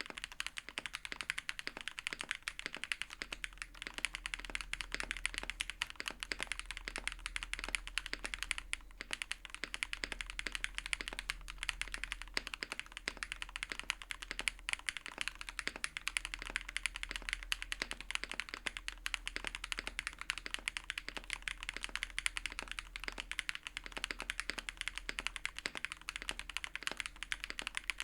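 Fast, steady typing on a custom mechanical keyboard, the Transition Lite, fitted with Gateron Lunar Probe linear switches: a continuous run of quick key clacks.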